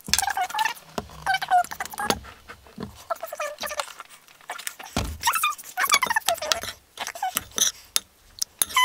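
Repeated short squeaks, gliding up and down in pitch, from a metal spoon working a wet mix of PVA glue and washing soda against a porcelain bowl, with a few dull knocks.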